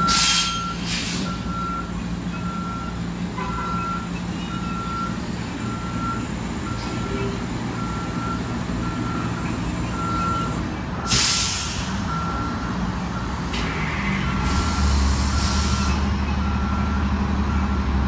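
A vehicle's backup warning alarm beeping steadily, about two beeps a second, over an idling bus engine. Sharp hisses of released air come at the start and again about eleven seconds in, and from about fourteen seconds in the engine grows louder under a longer hiss.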